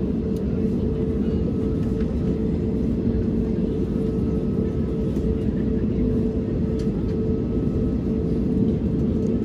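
Steady engine and airflow drone inside the cabin of an Airbus A320neo with CFM LEAP-1A engines, a low rushing noise carrying a steady hum.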